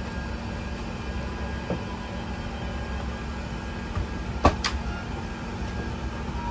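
Steady hum and low rumble of an Airbus A380's cabin at the gate, with two sharp clicks in quick succession about two-thirds of the way through.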